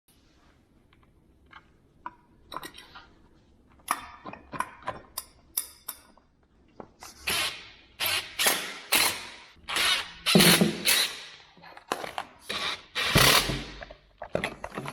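Kitchen cabinet assembly work: a string of knocks, bangs and scraping clatter, sparse at first and then louder and more frequent from about seven seconds in.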